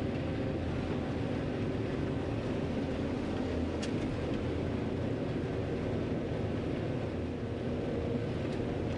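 John Deere 9500 combine running steadily under load while harvesting corn: an even engine and machinery drone, with a faint tick about four seconds in and another near the end.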